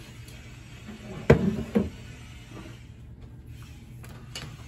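Two sharp knocks about half a second apart, around a second in, then a softer knock and a light click near the end: objects being set down and a freeze dryer's vacuum pump being taken hold of on a stone countertop.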